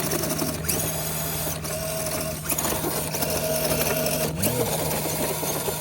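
Small electric motor and gearbox of an RC rock-crawler truck whining steadily under throttle, with a few short breaks.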